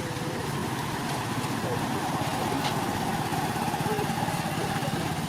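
A small engine running steadily with a fast even pulse.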